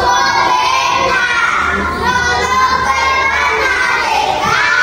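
Many young children's voices together, a kindergarten class on stage.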